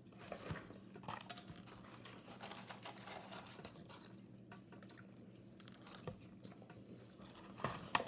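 Faint wet chewing and mouth sounds of someone eating a chicken burger, small irregular clicks and squishes over a steady low hum.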